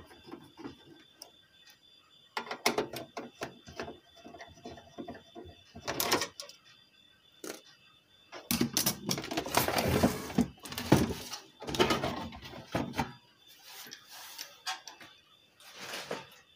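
Home inverter's sheet-metal casing being taken apart by hand: scattered clicks and knocks of a screwdriver and screws. About halfway through comes a few seconds of scraping and clattering as the metal cover is worked loose and lifted off.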